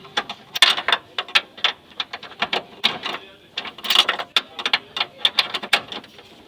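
Rapid, irregular metallic clicks and taps from hand tools at work on the engine mounting, coming in quick clusters of several a second.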